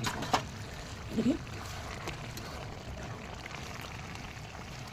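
Goat-meat curry bubbling in a pot as its added water simmers off, a steady watery hiss with two sharp clicks near the start.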